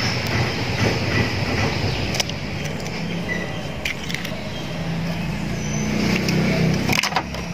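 Eggs being cracked and poured into flour: a few short, sharp taps of shell, spaced over several seconds, over a steady low rumble and hum.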